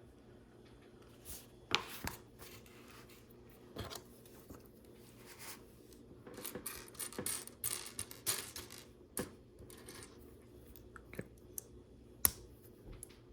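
Plastic LEGO pieces being handled and sorted, with scattered light clicks and rattles and some rustling, busiest in the middle and with one sharper click near the end.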